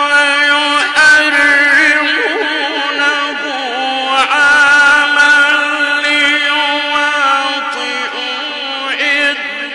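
A male Quran reciter chanting in the melodic Egyptian style, holding long drawn-out notes with a wavering, ornamented pitch.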